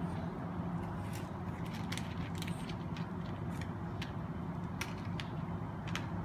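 Several cats crunching dry kibble, a quick, irregular run of small crisp clicks, over a steady low hum.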